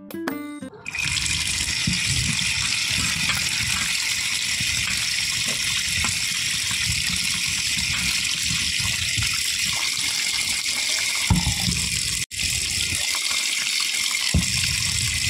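Running water pouring into a perforated steel colander of small mourola fish as a hand swishes and rinses them, a steady rushing hiss with uneven sloshing beneath. The flow cuts out for a moment just after 12 seconds in.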